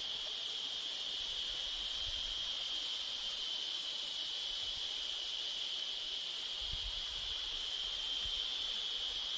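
Steady, high-pitched drone of insects holding one even pitch, with a brief low rumble on the microphone about two-thirds of the way through.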